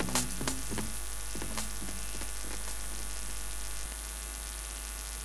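The song's last beats die away within the first second or so, leaving a steady low mains hum with a high hiss underneath.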